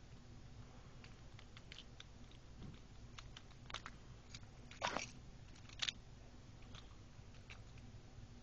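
Faint scattered clicks and taps of small plastic Beyblade parts being handled and fitted together, with two louder clicks about five and six seconds in, over a low steady hum.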